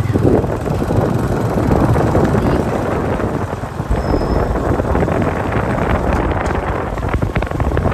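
Wind buffeting the microphone of a moving vehicle, with the vehicle's engine and road noise running underneath.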